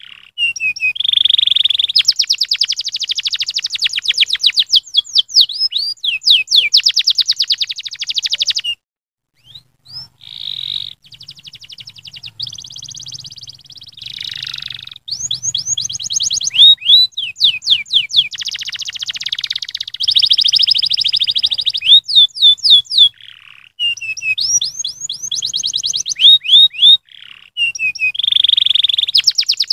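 Domestic canary singing a long, loud song of rapid high trills and rolls, one phrase running into the next. There is a short break about nine seconds in.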